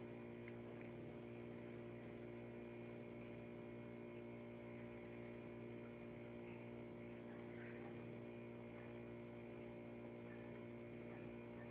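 Steady electrical mains hum made of several steady tones. Faint, occasional soft touches of paper as small paper circles are pressed down.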